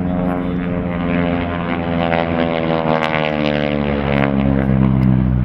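North American Harvard's nine-cylinder Pratt & Whitney R-1340 radial engine and propeller in a low display pass, a loud, steady drone whose pitch falls slowly as the aircraft goes by.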